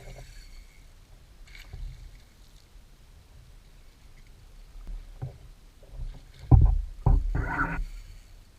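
Kayak on the water: soft knocks and bumps against the hull over a low rumble, with two louder thumps about six and a half seconds in followed by a brief rush of noise.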